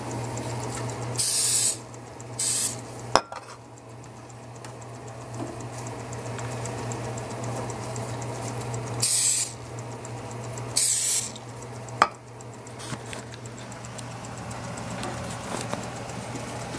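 Aerosol olive-oil cooking spray hissing in four short bursts, two close together early on and two more a little after the middle, as flour tortillas are coated lightly for crisping in a toaster oven. A sharp click follows each pair of bursts.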